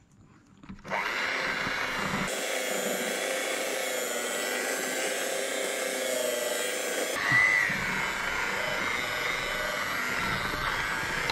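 Electric hand mixer starting up about a second in and running steadily, its beaters whisking cake batter in a bowl. The sound shifts abruptly twice, around two and seven seconds in.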